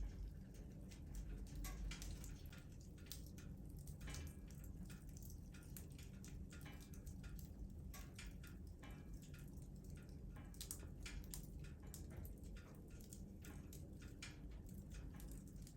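Fire crackling in a fireplace: many small irregular pops and snaps over a low steady rumble.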